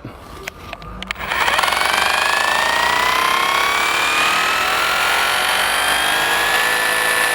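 Bosch 36V Bulldog cordless rotary hammer switched on and running, its motor pitch climbing gradually over several seconds and then holding steady as it ramps up from its 70% setting to full speed.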